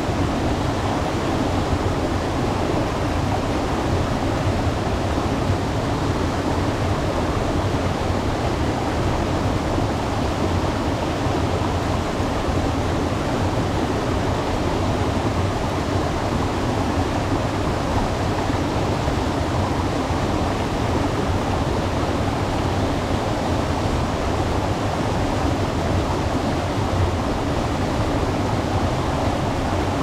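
Waterfall: falling water makes a steady, unbroken rush with a deep rumble under it.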